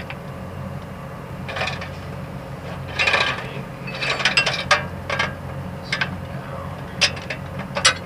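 Steel roller chain on a combine's auger drive being worked by hand onto its sprocket, the links clinking and rattling against the metal in short irregular bursts. A steady low hum runs underneath.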